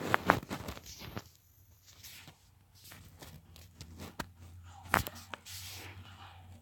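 Scattered light taps and clicks, with faint rustling: a phone being handled and tapped.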